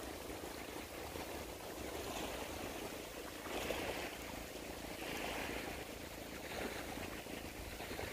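Steady rushing outdoor background noise, like running water or wind, with two brief hissy swells about three and a half and five seconds in.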